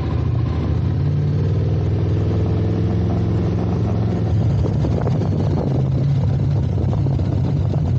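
Motorcycle engine running steadily as the bike is ridden up a slippery road, its pitch rising slightly and settling in the first few seconds.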